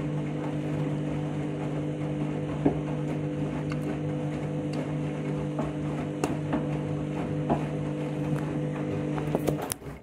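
Washing machine running in its final rinse: a steady motor hum with light clicks and knocks, cutting off suddenly near the end.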